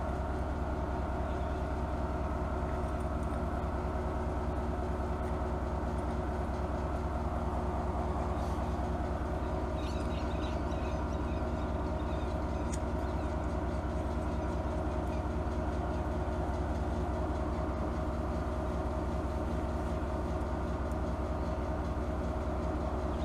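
Twin 12-volt air compressors running steadily, refilling a big air tank, a constant drone with several pitches. A few faint clicks of small carburetor parts being handled about ten seconds in.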